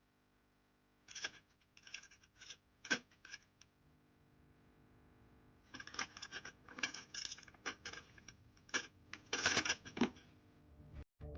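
Quick irregular scratching and scraping in two spells, from a cat's claws scrabbling as it tries to get up onto a roof.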